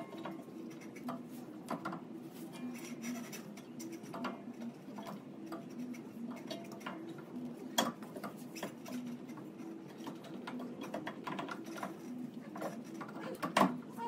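Light metal clinks and scrapes as a car's brake rotor and caliper are handled and fitted onto the front wheel hub, with a few sharper knocks, over a steady low hum.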